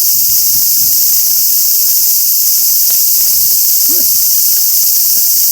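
Cicadas singing in a dense summer chorus: a loud, steady, high-pitched buzz that does not let up.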